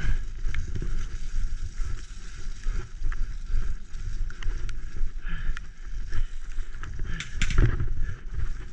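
A graziella folding bike rattles and knocks as it bounces fast down a rough, rutted dirt track, with wind buffeting the action-camera microphone. There is a louder clatter from a harder jolt near the end.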